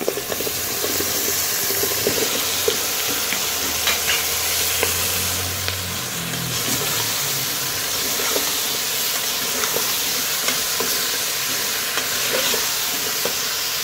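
Turnip chunks and spinach sizzling and frying in hot oil in a pressure cooker pot, stirred with a metal slotted spoon.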